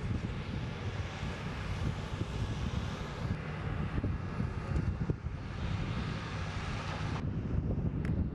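Jet airliner engine noise on an airport apron: a steady rumble with a hiss on top. The sound changes abruptly about three and five seconds in, and the high hiss drops away about seven seconds in, leaving a lower rumble.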